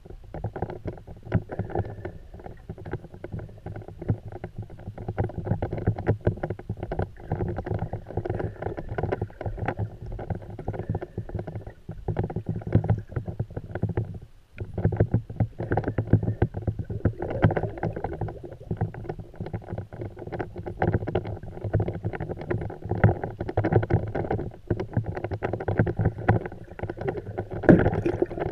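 Muffled underwater noise picked up by a GoPro in its waterproof housing: a continuous low rumble of moving water with frequent small clicks and crackles.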